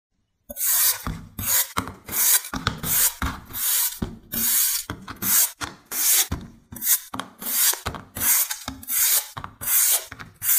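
A knife blade cutting and shaving a ball of green floral foam in a rapid series of crisp, rasping strokes, about two or three a second. The strokes begin about half a second in, after a short silence.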